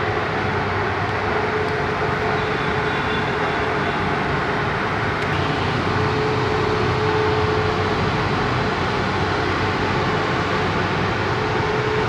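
Steady vehicle running noise with a faint steady hum; no horn sounds.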